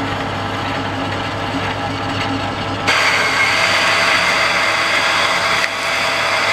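Metal lathe running at about 280 RPM while a 32 mm spade drill bores into 1045 steel, giving a steady machine hum with the scrape of the cut. About three seconds in the cutting gets louder and harsher, and it eases a little near the end.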